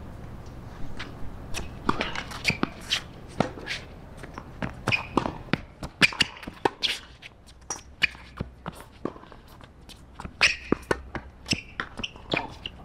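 Tennis rally on a hard court: a string of sharp pops as rackets strike the ball and the ball bounces, some loud and close, some fainter from the far end, with shoes scuffing on the court.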